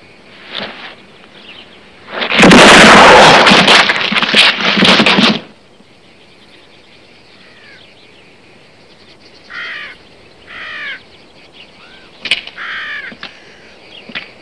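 Crows cawing several times, each call falling in pitch, starting about halfway through. A loud, dense roar of noise lasting about three seconds comes near the start, and a single sharp click sounds shortly before the last caws.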